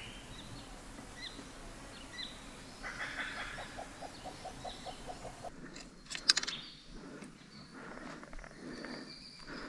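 Outdoor bush ambience with scattered small bird chirps and a rapid run of about a dozen short pulses, some five a second, about three seconds in. A sharp crack or knock, the loudest sound, comes about six seconds in.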